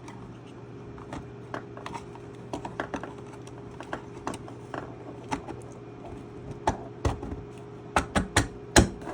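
Irregular clicks and knocks of a battery pack being pushed and worked into a tight-fitting enclosure, with the loudest knocks near the end. A steady low hum runs underneath.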